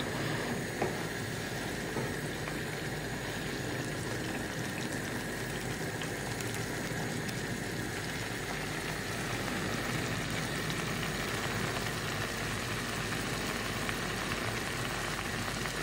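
Meat broth boiling in a pan, with a beef bone, fat and zucchini slices in it: steady bubbling.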